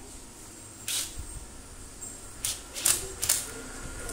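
Handling noise from working on a standing fan's electric motor and its wiring by hand: a few short scrapes and clicks, one about a second in and a cluster of three between two and a half and three and a half seconds in.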